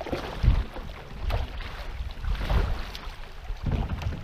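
Canoe running through fast, shallow river water: water rushing along the hull, with several low thumps and a few knocks.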